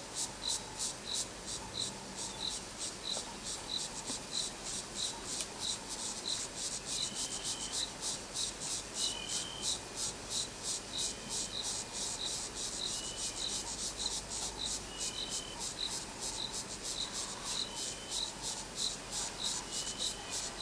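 An insect chirping in a steady, even rhythm of about two to three high-pitched chirps a second, with a short, slightly higher call repeating about every two seconds from about a third of the way in.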